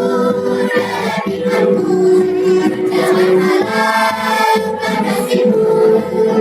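A children's choir singing, drawing out long held notes.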